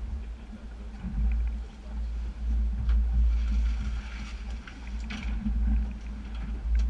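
Boat at sea: a steady low rumble of wind on the microphone over a steady hum, with a few knocks on deck and a brief hiss about halfway through.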